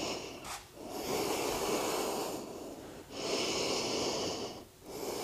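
A woman's slow, deep breathing close to the microphone: a run of long, airy breaths in and out, each a second or so long, with short pauses between them.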